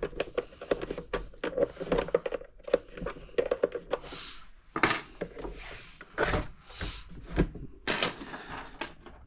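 Workshop handling noise: clicking and rustling of wires and plastic connectors inside a model boat's hull, then knocks and a couple of sharp metallic clinks of tools on a wooden bench, about five and eight seconds in.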